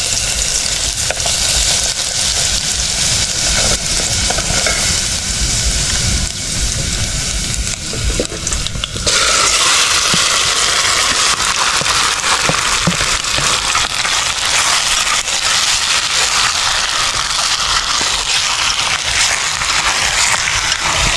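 Rat meat stir-frying in a hot pan, sizzling steadily; the sizzle turns louder about nine seconds in.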